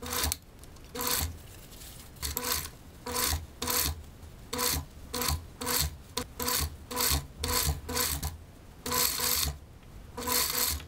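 Industrial sewing machine stitching a seam in many short stop-and-go bursts, each under half a second, with a steady low motor hum beneath.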